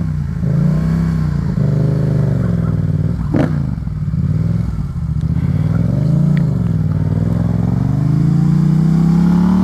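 Yamaha FZ-07's 689 cc parallel-twin engine pulling away, its revs rising and falling several times, then climbing steadily near the end. A sharp click sounds about three and a half seconds in.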